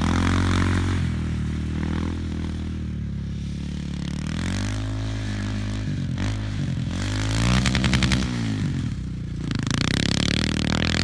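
Engine of an off-road ATV running and being revved, its pitch rising and falling several times, highest about three quarters of the way through.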